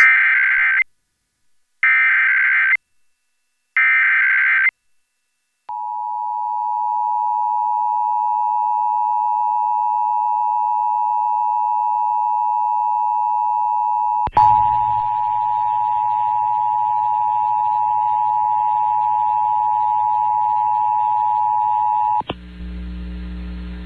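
Emergency Alert System broadcast alert: three short bursts of warbling SAME header data tones about two seconds apart, then the steady two-tone EAS attention signal held for about sixteen seconds. The alert opens a required monthly test. A faint hiss comes in under the tone with a click about halfway through, and after the tone cuts off a low hum is heard.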